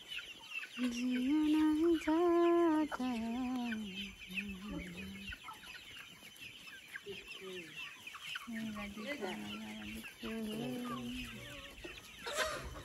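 A flock of local chickens clucking, with short high calls throughout and longer drawn-out calls, the loudest about a second in and more around eight seconds in.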